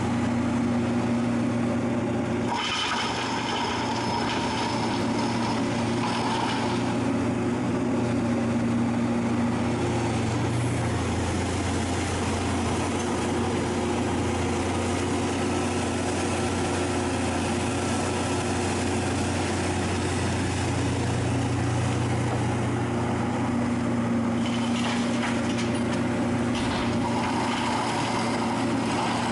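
Hitachi Zaxis 470 LCH excavator's diesel engine running steadily under working load, its note shifting up and down several times as the hydraulics swing and work the bucket. Near the end, soil pours from the bucket into a tipper trailer.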